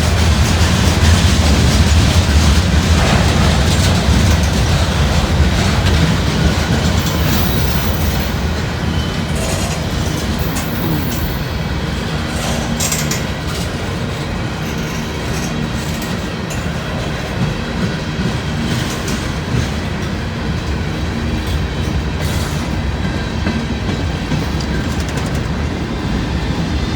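Freight cars of a 160-car freight train rolling past, steel wheels rumbling steadily on the rails. The rumble is loudest in the first several seconds and eases a little after.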